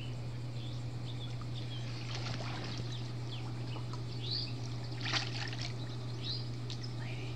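Pool water splashing and lapping as a man wades through it, with a louder splash about five seconds in. Birds chirp in the background over a steady low hum.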